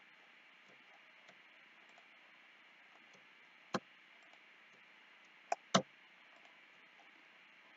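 Computer mouse clicks: three sharp clicks, one about four seconds in and a quick pair about a second and a half later, over a faint steady hiss.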